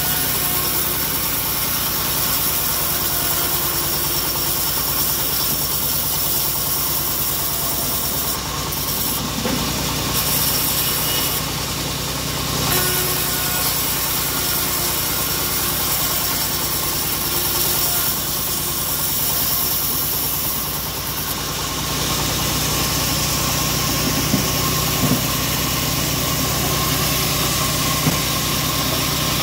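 Homemade engine-driven bandsaw mill running steadily, its blade cutting lengthwise through a mahogany log as the log is pushed along the table. A few short knocks come near the end.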